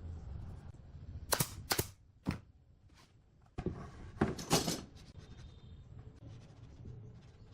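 Sharp knocks from carpentry work over a low steady hum: three single strikes about a second in, then a quick run of several more about four seconds in.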